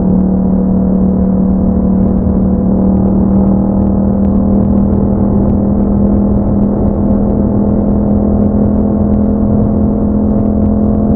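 Yamaha MT-07's 689 cc parallel-twin engine running through an Akrapovič exhaust at steady revs, its drone creeping slightly higher in pitch.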